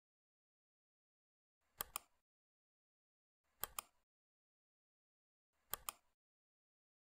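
Three computer mouse clicks about two seconds apart. Each is a quick pair of sharp ticks: the button pressing and then releasing.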